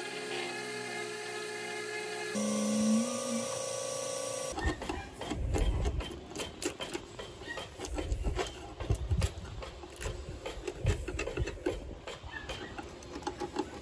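An electric orbital sander runs steadily for the first four seconds or so. Then a hand paint scraper works in short, irregular strokes with many clicks, chipping and scraping old paint off a wooden boat hull.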